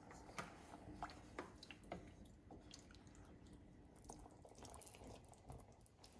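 Very faint drips and light clicks of water in an enamelled cast-iron pot of carrots, onion and water, as a wooden spoon stirs it.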